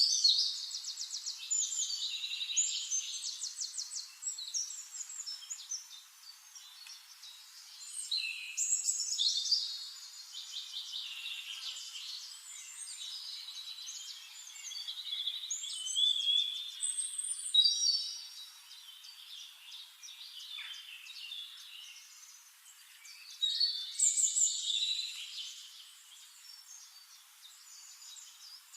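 Songbird singing: loud, varied phrases of fast trills and chirps, a new phrase starting about every eight seconds, with fainter calls in between.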